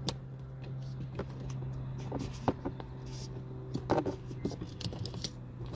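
Screwdriver working a stubborn screw out of a car dashboard's front speaker mount: scattered small clicks and scrapes over a steady low hum.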